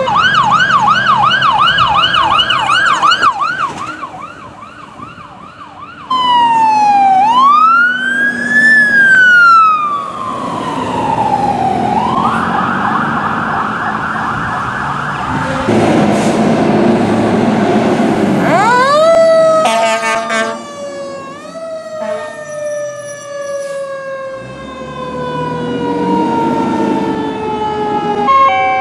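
Fire truck sirens from several responding trucks in turn. First a fast warbling yelp, then a slow wail that rises and falls, then a steady horn blast and short horn pulses. Near the end comes one long siren tone that falls slowly.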